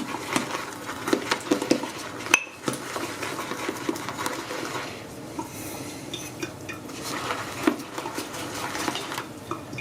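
Synthetic shaving brush being swirled around a bowl, working shave soap into lather after a few more drops of water: a steady wet swishing with many small clicks of the brush against the bowl, and one sharper knock about two and a half seconds in.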